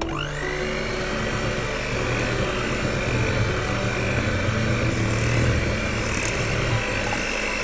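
Moulinex electric hand mixer starting up with a quick rising whine, then running steadily as its beaters whip cake batter in a glass bowl.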